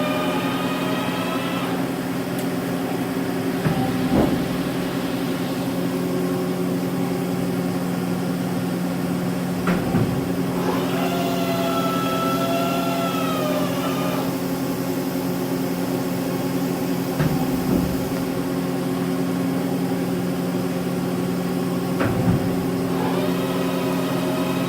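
Mazak Slant Turn 60 CNC lathe running with a steady machine hum while its turret indexes through tool changes. Sharp clunks come every several seconds, and twice a wavering whine lasts a few seconds as the turret turns.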